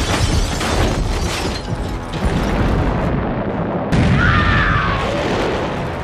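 Loud, dense boom and explosion sound effects, with a fresh blast starting suddenly about four seconds in.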